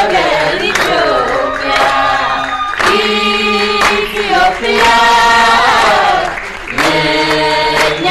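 A group of people singing together with hands clapping along.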